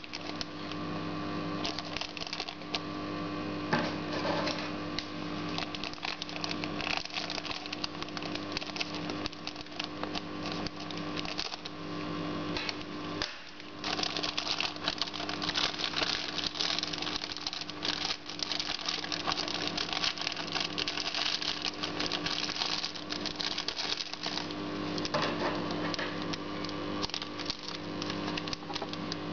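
Thin plastic fish bag crinkling and rustling continuously in the hands, a dense crackle of small clicks, over a steady low hum.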